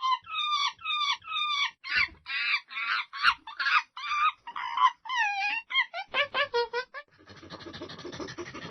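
A monkey giving a rapid series of short, high-pitched calls that bend up and down in pitch, about two a second and quickening toward the end. Near the end they give way to a rough, breathy noise.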